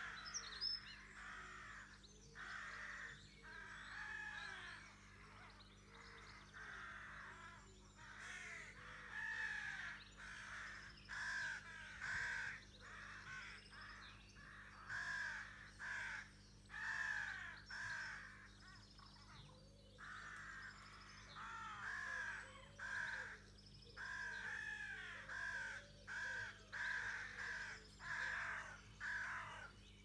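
Crows cawing in a steady, overlapping stream of calls, one every half second to a second, over a faint steady low hum.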